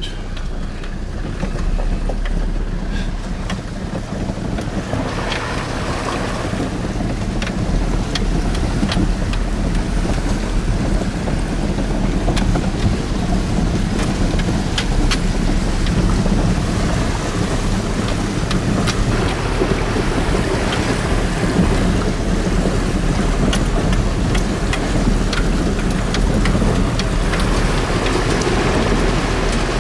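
A four-wheel-drive's engine running steadily as the vehicle fords a river, with water rushing and sloshing against the body, heard from inside the cab. Occasional light ticks sound over it.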